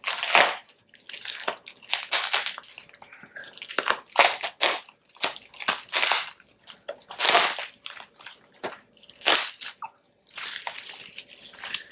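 Knife cutting open shipping packaging, in irregular scraping and crunching strokes, with the wrapping rustling as it is pulled apart.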